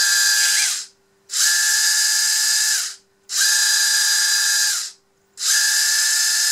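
Small high-speed electric motor and metal gearbox of a Huina 580 RC excavator's bucket drive, running the bucket closed and open in turn. It makes four separate runs of about a second and a half, each a steady high whine that starts and stops abruptly.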